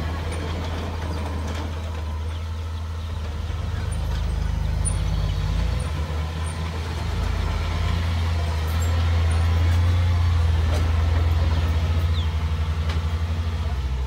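Small crawler bulldozer's diesel engine running under load while pushing dirt, swelling louder about four seconds in and again from about eight seconds, with a short dip in between.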